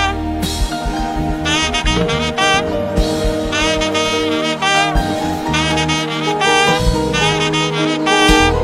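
Instrumental gospel music: a saxophone plays a wavering lead melody in short phrases over held bass notes and a drum beat.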